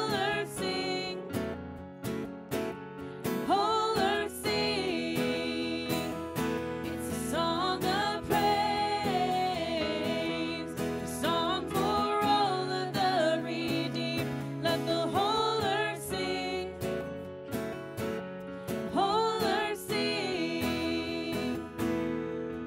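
Live worship band music: acoustic guitar and keyboard playing a steady song, with a woman singing the melody in phrases into a microphone.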